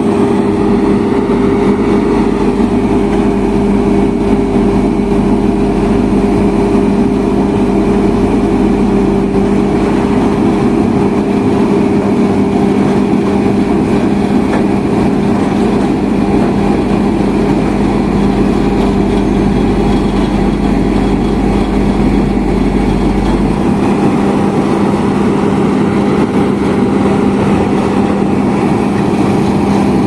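Heavy diesel road-paving machinery running steadily, with a constant low hum; a deep rumble underneath drops away about three-quarters of the way through.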